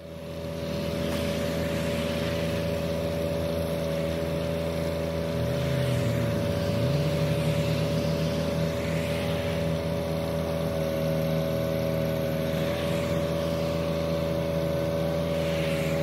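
Compact tractor engine running steadily. The sound fades in at the start, and its pitch dips briefly and comes back up about six seconds in.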